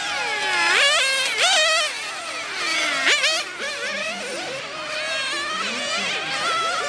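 Several 1/10-scale nitro touring cars' small two-stroke glow engines running at high revs, their pitch dropping as they lift off for corners and rising sharply as they accelerate again, several engines overlapping.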